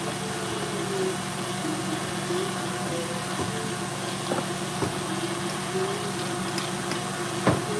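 Stand mixer motor running steadily on speed 6, whisking Italian meringue for macarons as it cools toward about 40 °C. A few light clicks, the clearest near the end.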